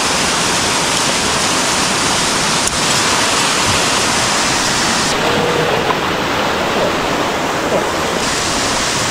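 Waterfall in a mountain stream, its falling water making a loud, steady rush close to the microphone.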